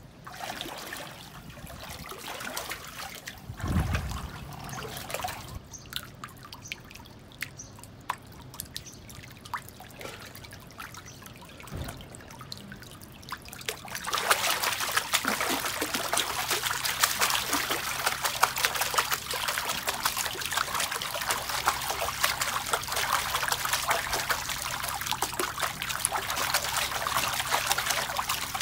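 Water in a small plastic backyard pool being stirred and splashed: a few light sloshes and drips at first, then from about halfway through a constant busy splashing and trickling as a person thrashes in the water.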